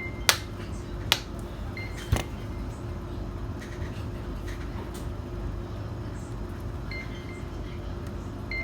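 Three sharp clicks in the first two seconds from the tablet being handled during repair, over a steady background hum.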